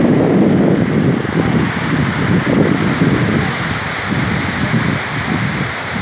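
Steady rushing of Tortum Waterfall's falling water, with wind buffeting the phone's microphone in irregular gusts that ease slightly in the second half.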